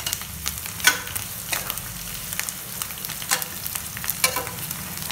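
Sliced onions, carrots and green chillies sizzling in oil in a stainless steel pan while being sautéed to soften. They are stirred with a metal spoon that scrapes and clinks against the pan several times.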